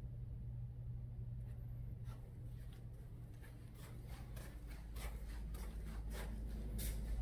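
Soft footsteps and handling rustle from someone carrying a phone camera, over a low steady hum. The steps become more frequent and distinct in the last couple of seconds as they cross a tile floor.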